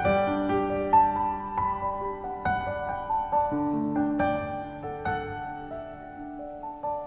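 Background piano music: slow, single notes and chords that strike and ring on, one after another.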